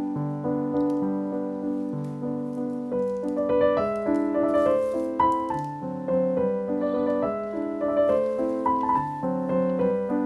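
Background piano music, a steady melodic line of single notes and chords.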